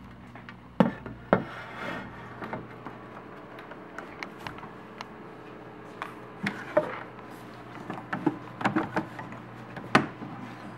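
Small wooden drawers of an old apothecary cabinet being handled: scattered knocks, clicks and wooden rubbing as drawers with glass knobs are pulled open and pushed shut, the loudest knocks about a second in and near the end. A steady low hum runs behind them.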